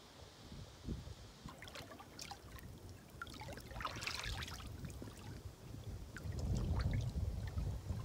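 Shallow water lapping and trickling around rocks at the water's edge, with many small drips and splashes that are busiest about halfway through. A louder low rumble comes in near the end.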